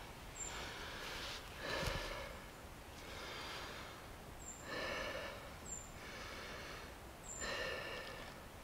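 A man breathing heavily through the nose, in and out about once every second and a half.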